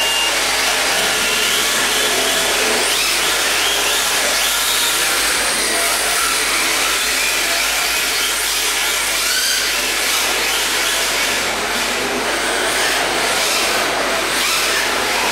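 Electric rear-wheel-drive RC drift cars running and drifting: motor whines rise and fall as they throttle through the corners over a steady hiss. A short steady beep, the start signal, ends right at the beginning.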